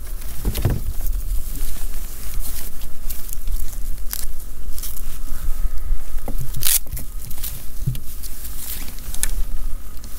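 Rustling and scattered knocks of a kayak angler handling a crappie and a hooped mesh keeper bag over the boat's side, with a sharp rustle about six and a half seconds in, over a steady low rumble.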